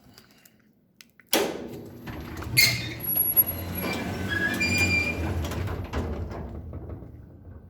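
Noise from a neighbouring industrial plant: a sudden loud start about a second in, then a low rumbling din with thin high squealing tones over it, fading away near the end.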